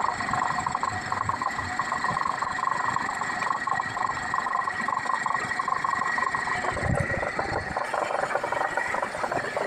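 Hitachi LX50 wheel loader running steadily, a constant high whine over a rattling mechanical drone, with a brief low rumble about seven seconds in.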